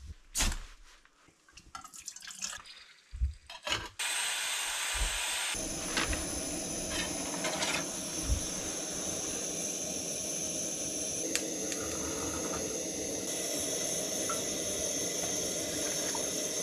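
A few faint handling clicks, then a camp stove burner lit for cooking starts suddenly about four seconds in and hisses steadily at an even level.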